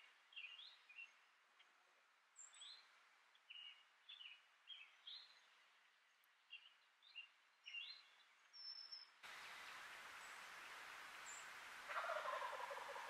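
A wild turkey gobbler gobbles once from its roost near the end; this is the loudest sound. Before it, a scatter of short, faint, high bird chirps.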